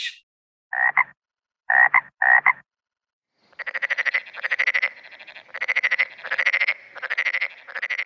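Frogs calling: three short croaks, then a run of rapid pulsed trills coming in repeated bursts of about half a second.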